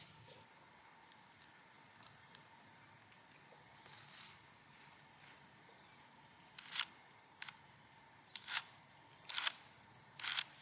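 Insects chirring steadily in a high, even drone outdoors, with a few faint handling clicks in the second half.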